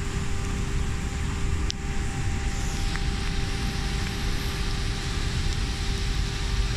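Steady rushing noise of road traffic and rain, with a low rumble underneath.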